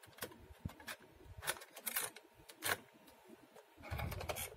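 Small plastic clicks and knocks of a VHS-C cassette being set into an RCA camcorder's cassette holder and the holder door being pushed in. There are several separate clicks, with a brief rub of handling near the end.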